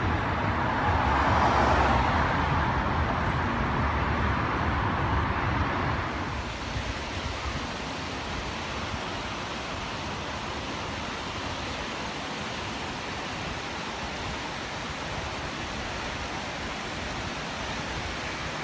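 Steady hiss of rain falling over a city. For the first few seconds there is louder noise with a low rumble underneath.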